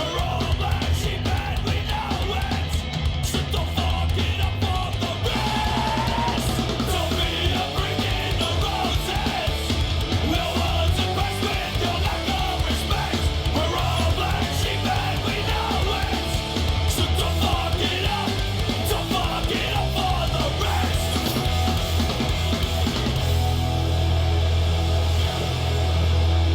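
Heavy rock or metal music with distorted guitar, a steady bass and shouted vocals.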